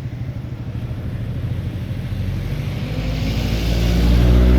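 Army helicopter's rotor beating rapidly with its engine running, growing louder over the last couple of seconds as it comes closer.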